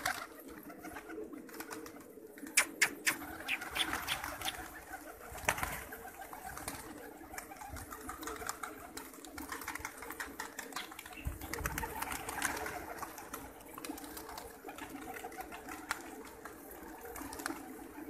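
A large flock of Gulgasht pigeons cooing together in a steady murmur. Scattered sharp clicks run through it, with a cluster of louder ones a few seconds in.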